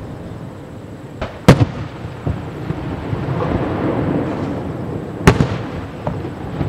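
Aerial firework shells bursting: two sharp, loud bangs about four seconds apart, with a few fainter pops and a low rumble between them.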